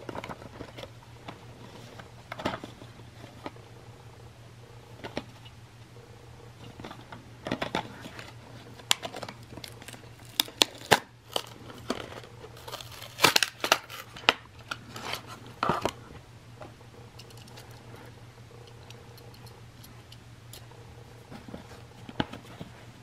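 Plastic blister packaging and its card backing crinkling, crackling and tearing as a toy engine is pulled out by hand, in scattered sharp snaps and crackles that are busiest in the middle and then die away.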